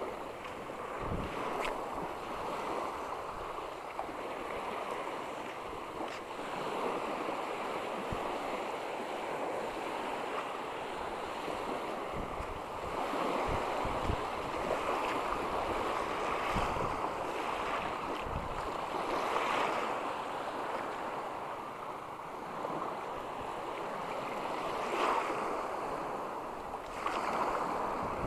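Small waves lapping and breaking on a shallow shoreline, a steady wash with slight swells, and gusts of wind knocking on the microphone now and then.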